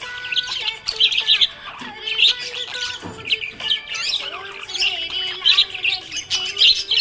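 Budgerigar chirping and warbling in quick, continuous bursts of short high chirps.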